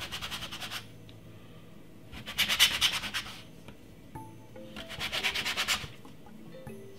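Metal star-shaped cookie cutter being pressed and worked through rolled biscuit dough against a floured stone counter: three short bursts of rapid scratchy rubbing, one per cut.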